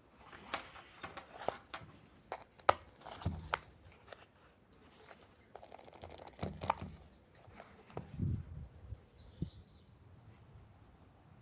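Irregular sharp clicks and soft knocks, a few louder than the rest, scattered over most of the stretch and dying away near the end.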